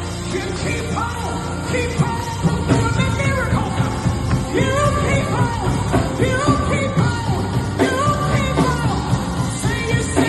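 A worship song sung with full band accompaniment: a vocal line with held, sliding notes over a steady drum beat.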